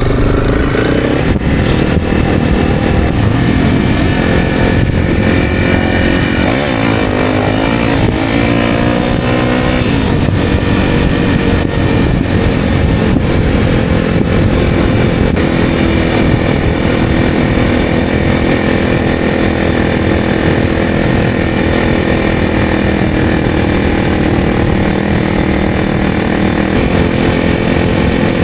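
Honda CRF300's single-cylinder engine running loud and steady as the bike is ridden through deep sand. The revs rise and fall for a few seconds about a quarter of the way in, then settle again.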